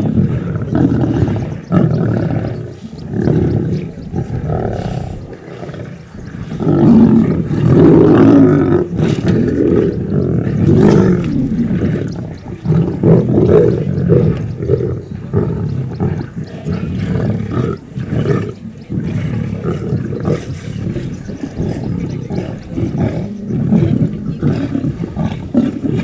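A pride of young lions giving deep, guttural growls as they crowd together and compete over a fresh kill in a feeding frenzy. The growling is continuous, with louder outbursts about seven to eleven seconds in and again around fourteen seconds.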